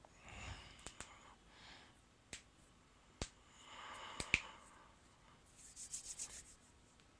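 Quiet rubbing of hands, with a few sharp clicks scattered through and a quick run of short rubbing strokes near the end.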